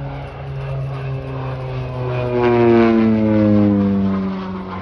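OV-10 Bronco's pair of Garrett T76 turboprops flying past, the propeller drone rising to a peak about halfway through and then dropping in pitch as the aircraft goes by.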